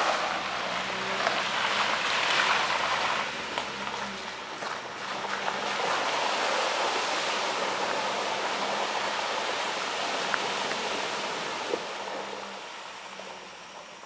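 An SUV driving away through a shallow river ford, its engine running low and its tyres splashing and churning through the water. The sound is loudest at first and fades as the vehicle pulls away.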